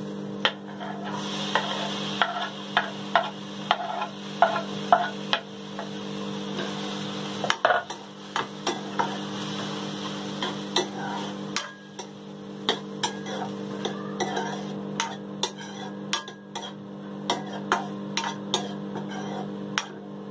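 A steel spatula stirs chopped onion, tomato and green chilli in a dry kadhai on a gas flame, dry-sautéing without oil. The spatula clicks and scrapes against the pan many times, over a steady low hum.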